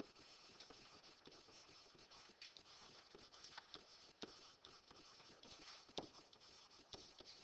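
Faint scratching and light taps of a stylus writing words on an interactive whiteboard, with a few sharper clicks, the clearest about six seconds in.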